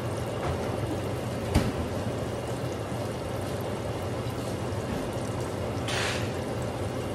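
Fish deep-frying in a pan of hot oil, sizzling and bubbling steadily. A single sharp click sounds about a second and a half in, and a short, louder hiss rises about six seconds in.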